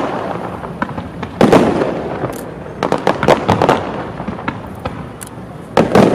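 Fireworks display: sharp shell bursts going off in clusters, with a loud volley about a second and a half in, more around three seconds and another just before the end, the bangs trailing off in rumbling and crackling.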